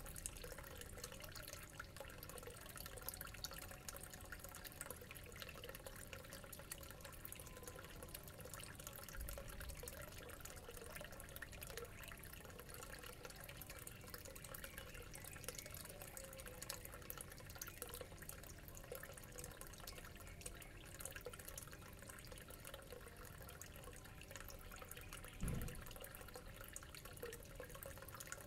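Faint, steady trickling and bubbling of water from aquarium tanks' aeration and filters, with a soft low bump near the end.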